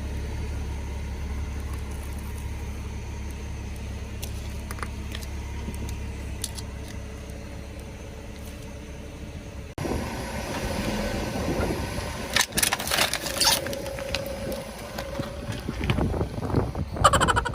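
A car engine running with a steady low rumble. About ten seconds in, the sound cuts to louder noise with sharp cracks and crunches, typical of a car's tyres crushing objects, ending in a rapid run of cracks.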